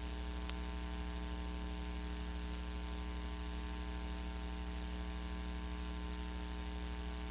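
Steady electrical mains hum with a faint hiss under it, a buzzy drone with many overtones that does not change, and one small click about half a second in.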